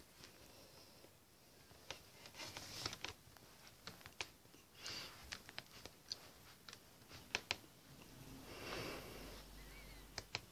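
Faint handling noise of a hard plastic object: scattered light clicks and taps, with a few breathy sniffs in between.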